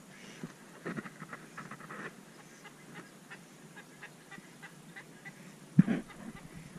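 Ducks calling in short runs of quacks over the water, with a single loud thump about six seconds in.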